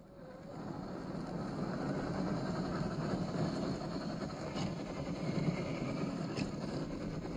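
A 1/10-scale RC crawler (MST CFX chassis, RC4WD 20T brushed motor) climbing a loose sand slope: a steady low rumble of motor, gearing and tires churning sand, building over the first second or two. Two sharp ticks come later on.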